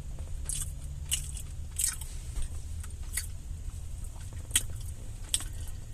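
A person chewing and biting food close to the microphone: a handful of short, wet mouth clicks and smacks at uneven intervals over a steady low hum.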